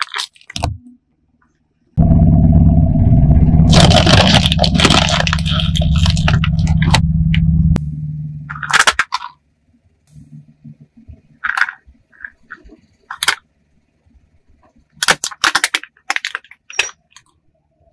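Hollow plastic toys being crushed under a car tyre on asphalt. A long, loud spell of cracking and crunching runs from about two seconds in to the middle, with a low rumble under it. Scattered sharp cracks and snaps follow in the second half.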